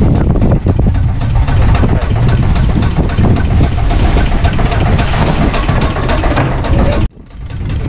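Fishing boat's engine idling with a steady low rumble, cutting out suddenly about seven seconds in.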